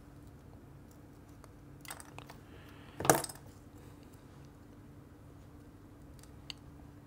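Hard little clicks from prying at a Lytro camera's cracked display assembly by hand: a light click about two seconds in, then one sharp, loud clink about a second later. A faint steady hum runs underneath.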